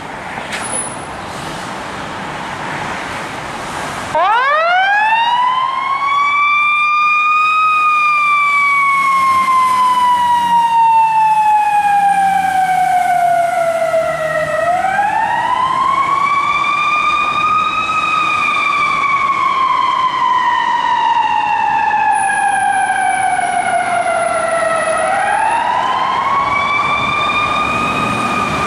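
Fire engine siren starting suddenly about four seconds in and wailing loudly. It rises quickly in pitch, then falls slowly over about seven seconds, and does this three times. Before it starts there is only street traffic noise.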